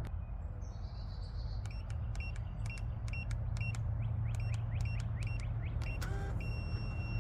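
Electronic beeps from a digital keypad door lock: a run of short, evenly spaced beeps, about three a second, then one longer held beep near the end, over a steady low hum.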